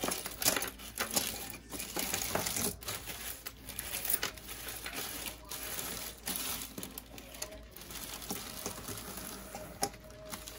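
Clear plastic bags crinkling and rustling as hands rummage through loose costume jewelry, with irregular small clicks and clinks of beads and metal pieces.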